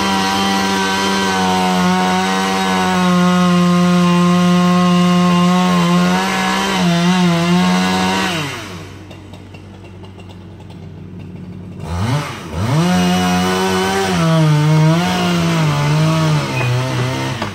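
Chainsaw running at full throttle through a cut, its pitch dipping now and then. About 8.5 s in it drops back to a quiet idle, then revs up again after about 3 s and cuts on.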